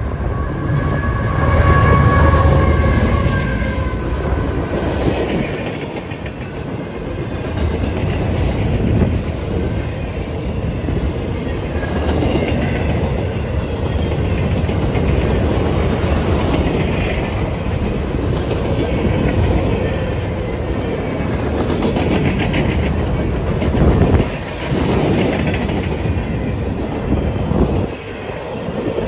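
A passing freight train: the diesel locomotives go by with a heavy engine rumble and a horn note dying away in the first few seconds, then a long string of boxcars and covered hoppers rolls past, wheels clattering over the rail joints.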